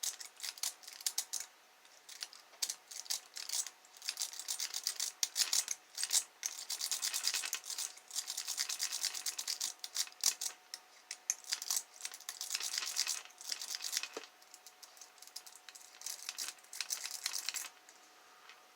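Lock rake scraping back and forth over the pin tumblers of a Kwikset lock, a rapid scratchy clicking that comes in bursts with short pauses. It stops about a second before the end.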